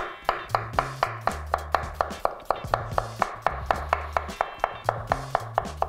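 Chef's knife slicing a cucumber into thin rounds on a wooden cutting board: a quick, even knock of the blade on the board about four times a second.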